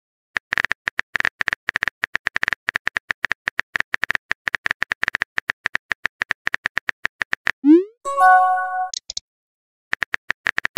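Simulated phone keyboard typing sound effect: rapid clicks, several a second, for about seven and a half seconds. Then a short rising bloop and a brief chime, the message-arrival alert of a chat app, followed by a few more clicks near the end.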